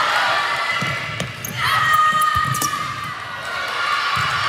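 Volleyball play on a gym court: thuds of the ball being hit and bouncing on the hardwood floor, echoing in the hall, with players calling out.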